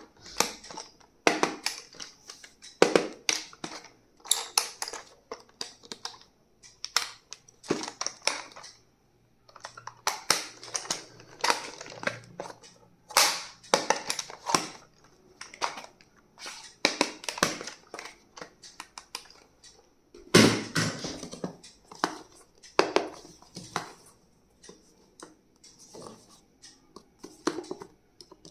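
Plastic and paper packaging rustling and crinkling as stationery is unwrapped, with irregular clicks and taps from items being handled.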